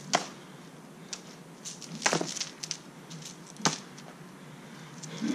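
Beaded jump rope striking a concrete driveway in a few separate sharp clacks, spaced a second or more apart, the loudest two about 2 and 3.5 seconds in.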